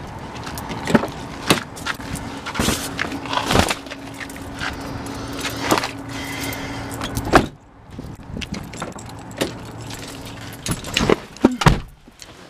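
Handling sounds of getting into a car: clicks and knocks of a door and a bag being set on the back seat, with a steady low hum in the middle. About seven and a half seconds in a car door shuts with a loud thump, and the background goes quieter. Keys then jangle and click in the cabin near the end.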